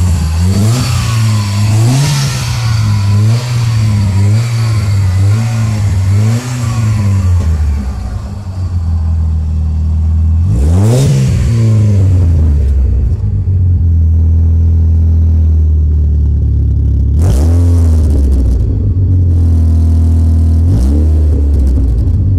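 Mitsubishi Eclipse engine heard through its tuned exhaust, blipped in quick revs about once a second for the first several seconds. It then idles steadily, with single sharp revs about eleven seconds in, about seventeen seconds in and near the end.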